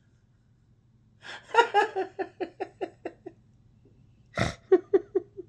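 A woman laughing helplessly in a run of short quick pulses, catching a sharp gasping breath about four seconds in, then laughing on.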